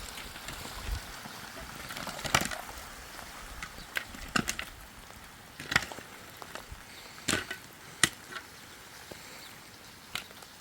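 Sharp chopping knocks at irregular intervals, about eight in all, like a tool striking wood, over a steady hiss.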